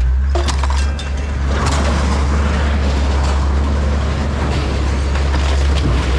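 Steady low drone of a vehicle running, with the hiss of road noise over it and a few light knocks in the first second or so.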